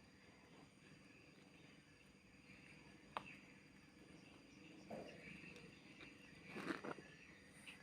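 Near silence: faint outdoor ambience with a sharp click about three seconds in and short rustling noises about five and seven seconds in.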